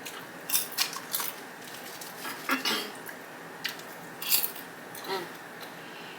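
Close-miked eating sounds: a sub sandwich loaded with crisp vegetables being chewed, heard as a handful of short, irregular crunches and mouth clicks.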